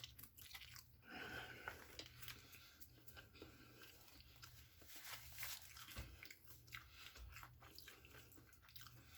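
Faint crunching and chewing: a person biting into and eating crispy fried chicken, its breading crackling in irregular strokes.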